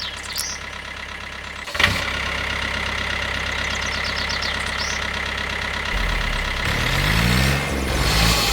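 Engine running steadily. Its sound changes suddenly with a click about two seconds in, and it revs up and down near the end.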